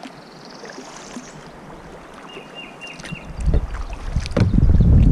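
Kayak drifting on fast river current, with soft water noise around the hull, then wind buffeting the microphone in loud, gusty low rumbles from about three seconds in.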